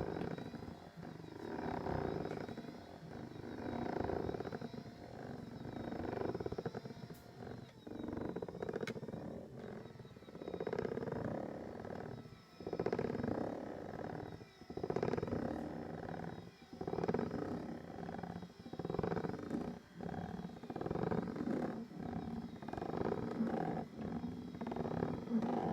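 Doctor Air 3D massage seat's massage mechanism running with a rough, growling grinding noise that swells and fades about every two seconds: the abnormal noise of a faulty seat.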